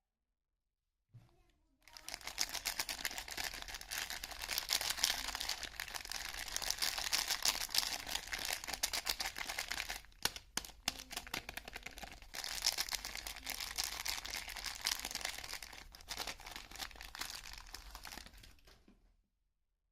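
Soap wrapping crinkling as a bar of soap is unwrapped by hand: a dense, fine crackle that starts about two seconds in, pauses briefly about halfway through and dies away near the end.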